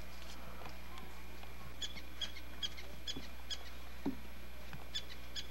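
A small bird chirping in short, high calls, about two or three a second, starting about two seconds in, over a steady low hum.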